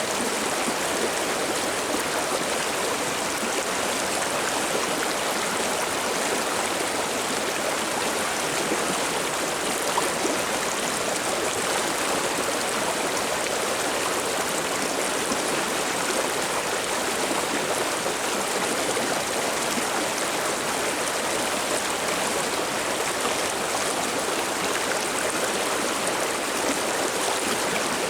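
River water babbling steadily over its bed, an even rushing splash that does not change.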